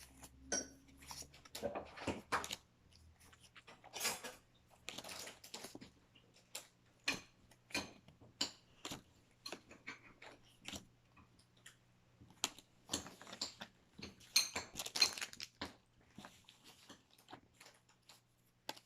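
Pokémon trading cards being handled and sorted by hand: irregular soft clicks, flicks and rustles of card stock.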